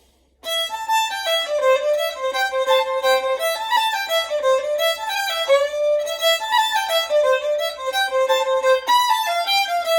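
Solo fiddle playing the B part of a Cape Breton tune below full tempo, a single melody line of ornamented notes that starts about half a second in and dies away near the end. It includes a "wild" fourth-finger note that is not in the mode, a Cape Breton way of spicing up a tune.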